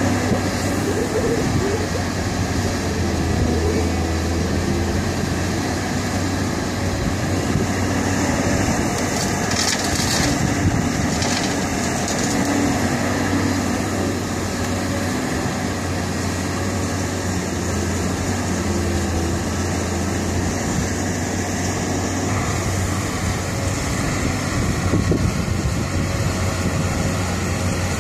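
CAT 320C hydraulic excavator's diesel engine running steadily under working load as the machine dumps and swings, with hydraulic working noise throughout. There is a brief hiss about ten seconds in.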